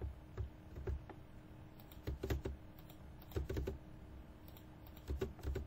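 Computer keyboard being typed on in several short bursts of keystrokes with pauses between.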